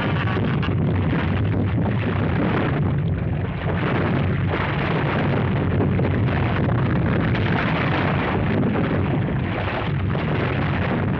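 Earthquake sound effect: a loud, continuous deep rumble of ground shaking with a rough, crackling noise above it, dipping briefly about three and a half seconds in.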